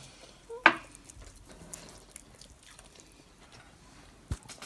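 Cutlery on plates while grilled fish is broken apart and served: a sharp clink less than a second in and another near the end, with faint scraping and ticks in between.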